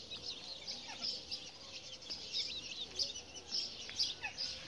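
Chicks peeping: many short, high-pitched cheeps in quick, irregular succession.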